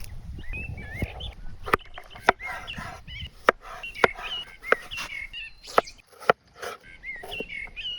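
Birds singing in short warbling phrases, with a dozen or so sharp knocks and clicks at irregular intervals.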